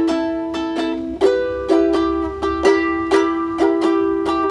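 Acoustic plucked-string instrument strummed in a steady rhythm, about four strokes a second, with chords ringing between strokes and no voice.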